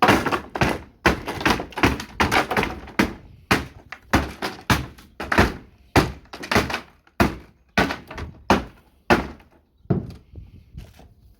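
A quick, irregular run of loud wooden thunks and knocks, about two a second: timber being struck as a wooden shed is broken apart. They thin out and stop about ten seconds in.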